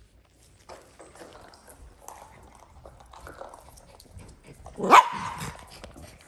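A small dog barks once, a short bark rising in pitch, about five seconds in, over faint rustling.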